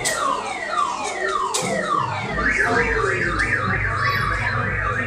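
Electronic police-siren sound effect from a police-themed kiddie ride: a run of quickly falling chirps, then about two seconds in a fast up-and-down yelp siren, about three swings a second, over a low electric hum.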